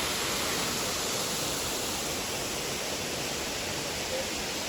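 Steady rushing water of a big waterfall, an even noise without breaks.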